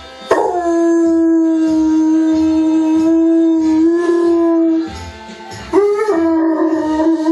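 Rottweiler howling along to music: one long held howl, then a second howl starting about six seconds in.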